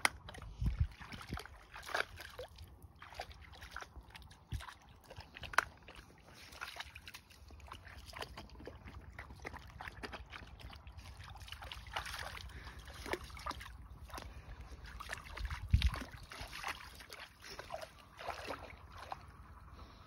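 Vizsla puppy wading in shallow water and lapping it up as it drinks, making small irregular splashes and sloshes, with a few louder splashes about half a second in, around five and a half seconds and near sixteen seconds.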